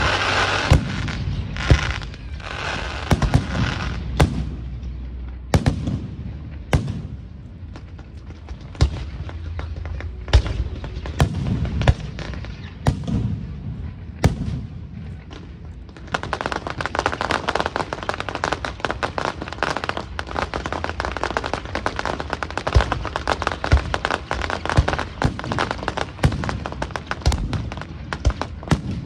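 Aerial fireworks bursting overhead: separate sharp bangs of shells going off. About halfway through they give way to a dense, rapid crackle of many small reports that keeps on to the end.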